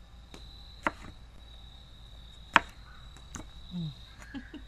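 Chef's knife slicing a banana pepper on a plastic cutting board: a few sharp knocks as the blade meets the board, the two loudest about a second and a half apart. A steady high insect chirring runs underneath.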